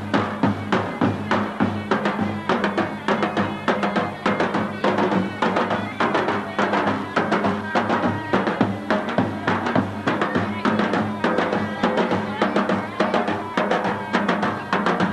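Davul bass drums beaten in a steady, driving folk-dance rhythm, a few strokes a second, with a held melody line sounding over them.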